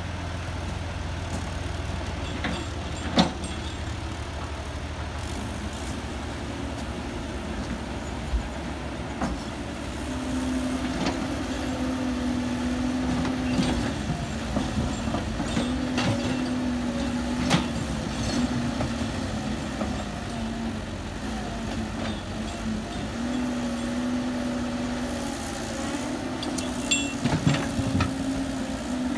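Heavy earth-moving machinery engine running, its pitch rising and falling from about ten seconds in, with scattered sharp knocks and clanks.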